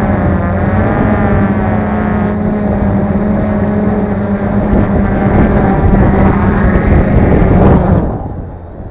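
Multirotor drone's motors and propellers whining loudly during a descent, their pitch wavering slightly, then spinning down about eight seconds in as it touches down.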